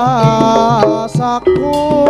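Live Javanese jaranan music: a singer holds a long, wavering note in Javanese over the band's sustained accompaniment. Hand-drum strokes pick up again about a second and a half in.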